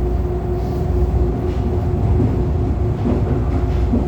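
CPTM Série 2000 electric train car running along the line, heard from inside: a steady rumble with a constant hum at a fixed pitch.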